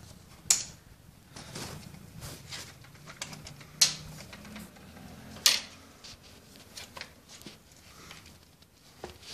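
Clicks and knocks of a homemade air-pressure dart gun being handled on its bipod and lifted, with three sharper clicks and a scatter of lighter ticks.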